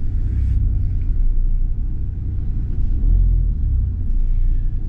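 Steady low rumble of a Fiat motorhome's engine running, heard from inside the cab as it manoeuvres slowly.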